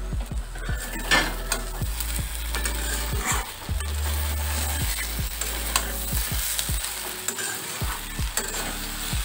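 A spatula stirring a dry long-bean, potato and prawn curry in a steel kadai, clinking and scraping against the pan many times over a soft sizzle.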